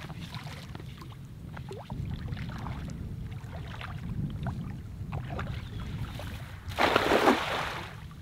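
Wind rumbling on the microphone, with small splashes and ticks of wading and handling a cast net; about seven seconds in, a loud hissing splash lasting about a second as the thrown cast net spreads and lands on the water.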